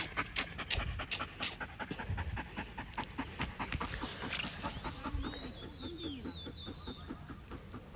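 A dog panting rapidly and close by, about three breaths a second, easing off a little in the second half.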